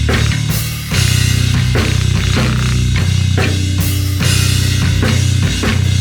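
Bass guitar and drum kit playing a rock groove together: low sustained bass notes under steady kick and snare hits, with an occasional cymbal crash.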